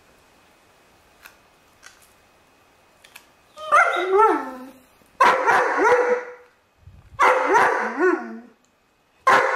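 Dobermann barking: four long, loud barks about a second each, pitch rising and falling within each, starting just before halfway. Before them, a few faint clicks of the puppy's teeth on a bone.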